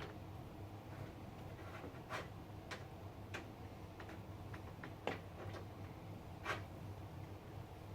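Scattered light clicks and taps at irregular intervals from hands working on PC hardware, over a steady low hum.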